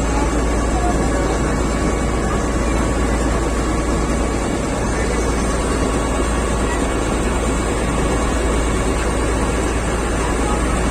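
A ferry boat's engine running with a steady drone, heard on board.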